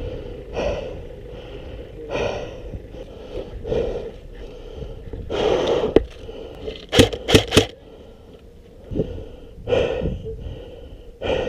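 A player breathing heavily, a breath about every second and a half, with three sharp airsoft gun shots in quick succession, about a third of a second apart, a little past the middle.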